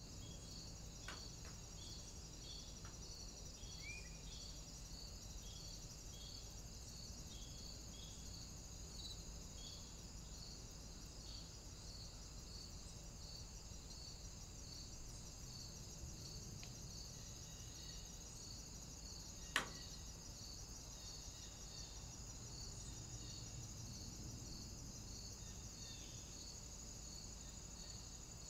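Steady high-pitched insect chirring in woodland, with a regular pulsing note about one and a half times a second. A single sharp click stands out about twenty seconds in.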